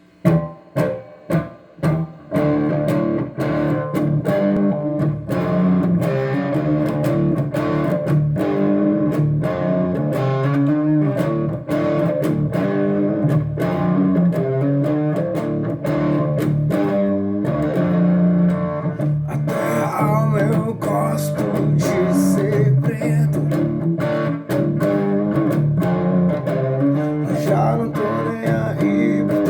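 Guitar playing an instrumental song intro: a few separate plucked notes at the start, then continuous rhythmic playing.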